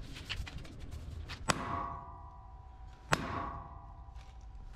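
Hammer blows on the seized steel cylinder pin of a boom lift: two hard metal-on-metal strikes about a second and a half apart, each ringing on briefly, with a third strike right at the end. The pin does not budge.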